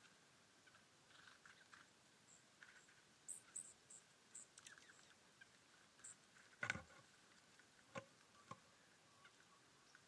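Small birds giving short, very high chirps, a quick string of them about three to six seconds in, over a faint steady high tone. Three soft knocks come near the end, the first the loudest.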